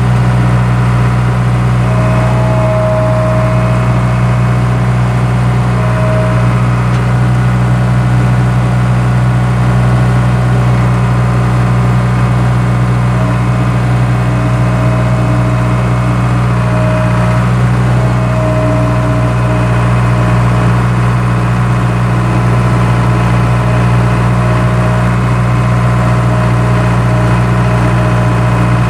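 Skid steer engine running steadily at a constant speed, a loud low hum with a fainter whine coming and going.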